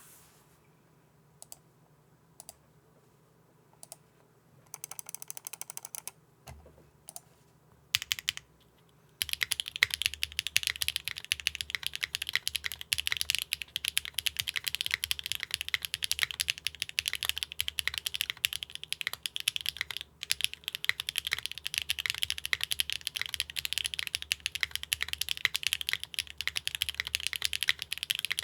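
Neo65 custom mechanical keyboard with HMX Catmint switches on a carbon-fibre plate, no foam, and GMK keycaps. A few single keystrokes and a short burst of presses come first, then fast continuous typing from about nine seconds in.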